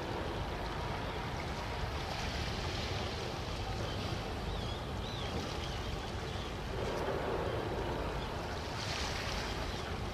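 Steady wind and water noise at a harbour shore, with a few faint high chirps about halfway through.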